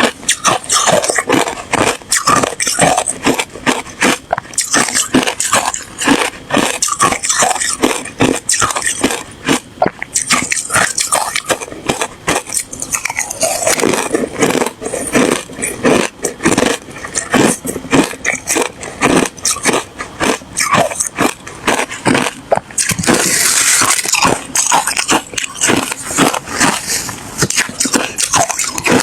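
A person biting and chewing hard ice, with dense, rapid crunching and cracking that goes on without a break.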